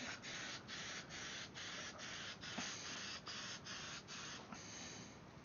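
Aerosol can of Aqua Net Super Extra Hold hairspray spraying a hiss that dips about three times a second, stopping near the end.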